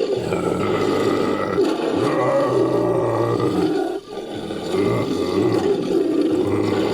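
Made-up creature roar sound effect, built by layering a person's voice with borrowed animal and movie-monster roars. Two long, loud roars, with a brief break about four seconds in.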